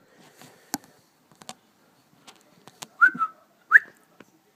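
A person whistling two short notes about three seconds in, the second sliding quickly upward, with scattered light clicks and taps around them.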